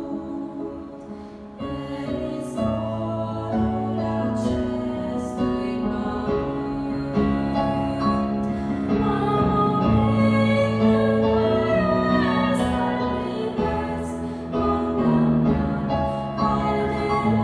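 Two female voices singing a Romanian hymn in duet, accompanied by a digital piano; the music swells fuller after about a second and a half.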